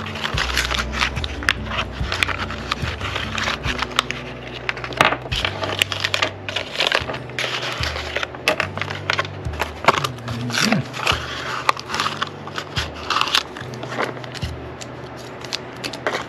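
Cardboard and plastic blister packaging being torn open and crinkled by hand, a run of sharp crackles and rustles, over background music with a stepping bass line.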